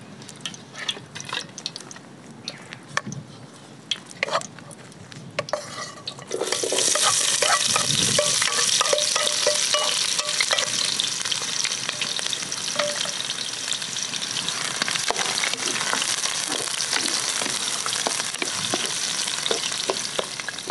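Sliced onions sizzling loudly in a pan of hot oil, stirred with a wooden spoon; the loud sizzle starts suddenly about six seconds in, after a stretch of faint scattered crackles.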